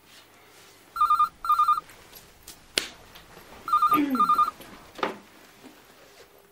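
Telephone ringing with a double-ring cadence: two rings, each a pair of short warbling trills, about three seconds apart.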